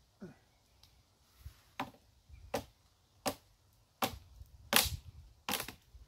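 Swiss Army knife saw blade, lashed to a long pole, being worked against a dead branch overhead: a run of six sharp wooden knocks and cracks, about one every three-quarters of a second, loudest near the end as the branch is forced down.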